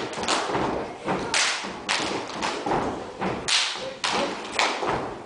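Step dancers stomping on a stage floor in unison, a rhythmic pattern of sharp thumping hits about two a second.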